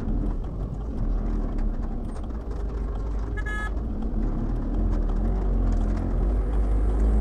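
Steady low rumble of a car's engine and road noise heard from inside the cabin, driving slowly through rain-soaked traffic. A brief high-pitched tone sounds about three and a half seconds in.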